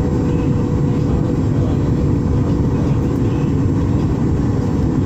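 Cabin noise inside a Boeing 737 MAX 8 on approach, heard from a window seat: a steady low roar of its CFM LEAP-1B engines and the airflow, with a faint steady hum.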